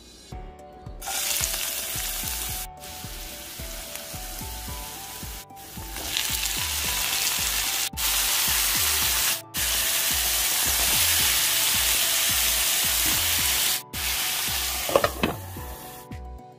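Mushrooms and chopped onion sizzling as they fry in hot oil in a nonstick frying pan. The hiss stops abruptly and comes back several times, with faint background music underneath.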